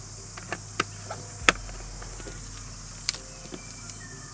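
A plastic juice bottle being handled after pouring: a few short, light knocks and clicks, the sharpest about a second and a half in, as it is capped and set down beside a mug. A steady high buzz of insects runs underneath.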